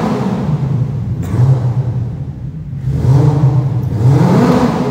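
A man imitating a drifting car's engine with his voice: held buzzing engine notes, with a rising rev near the end.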